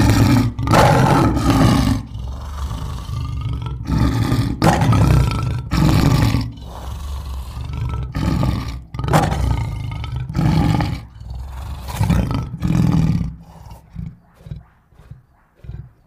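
Lion roaring: a string of loud, deep roars, then a run of shorter grunts that grow fainter over the last few seconds.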